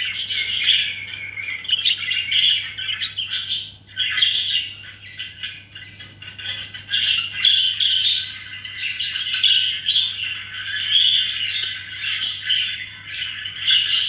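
A group of budgerigars chattering non-stop, a busy mix of quick chirps, warbles and squawks, with a brief lull about four seconds in.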